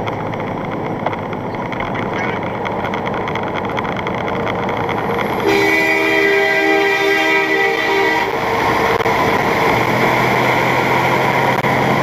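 A truck air horn blows one long, steady, multi-tone blast of about three seconds, starting about halfway in, over the continuous rumble of engine and tyres on a wet highway heard inside the truck cab.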